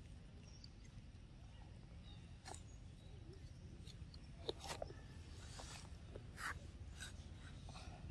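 Macaque eating a mango: a few soft, short smacks and clicks, the clearest just past the middle, over a faint low outdoor rumble.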